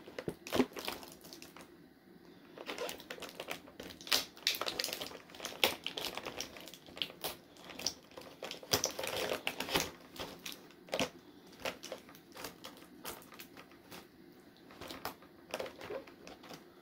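Hands working at action-figure packaging: irregular clicks, crackles and rustles as tape is picked and peeled off to free small accessories.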